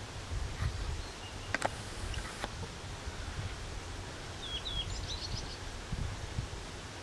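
Outdoor ambience of wind rumbling on the microphone, with two sharp clicks in the first few seconds and a bird giving a short run of high chirps a little past the middle.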